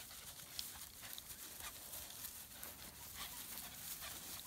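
Faint scuffling and rustling of two dogs playing tug-of-war over a rope toy on dry grass, with scattered small clicks and scuffs.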